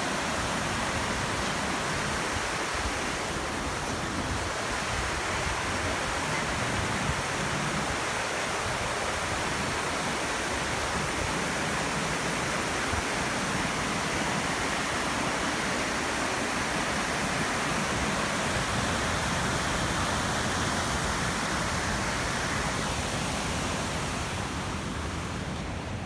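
Steady rushing of a fast mountain river pouring over rocky rapids, an even roar of white water that eases slightly near the end.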